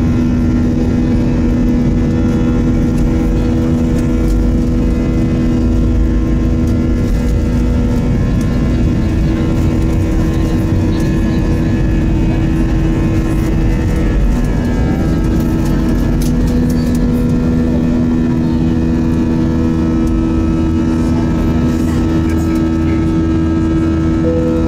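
Airbus A320's jet engines at takeoff thrust, heard from inside the passenger cabin: a loud, steady low rumble with several steady engine tones whose pitch steps a few times, during the takeoff run and climb-out.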